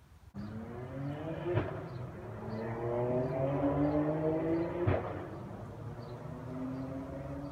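A motor vehicle's engine running, starting abruptly; its pitch climbs slowly, then drops and holds steadier about five seconds in, as at a gear change. Two sharp clicks stand out, one about one and a half seconds in and one about five seconds in.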